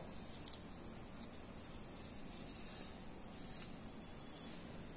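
A steady high-pitched background whine, with a few faint light ticks from paper strips being folded and handled.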